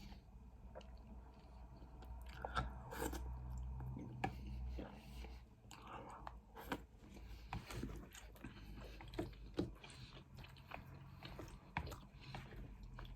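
Close-miked chewing and biting of a mouthful of sweet chilli prawn noodles and vegetables, with many short wet mouth clicks and the odd crunch.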